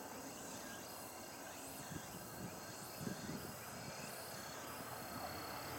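Quiet outdoor ambience with a few faint high chirps and a thin steady high hum, slowly growing a little louder near the end.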